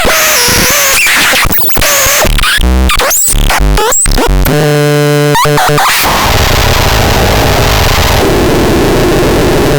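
VRTLOCH noise synthesizer: harsh, chaotic bursts with squealing pitch sweeps, then a stuttering buzzy tone about four and a half seconds in, giving way to a continuous wash of loud, harsh noise.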